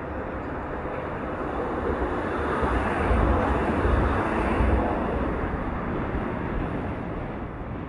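Outdoor rumbling noise with no distinct tones. It swells to its loudest about three to five seconds in, with deep gusty low rumble, then eases off.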